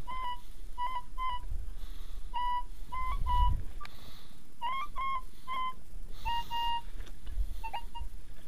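Minelab E-Trac metal detector giving short, high beeps in irregular groups, with one longer tone about six seconds in, as its coil sweeps over a buried target, a target that turns out to be an old piece of iron.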